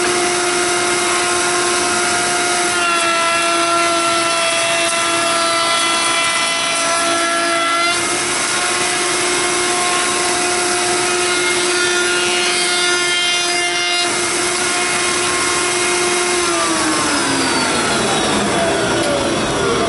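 Table-mounted wood router running at full speed with a high steady whine, cutting a profile along a board's edge; the pitch sags slightly while the bit is in the wood. About 16 seconds in the motor is switched off and the whine slides down as the bit spins down.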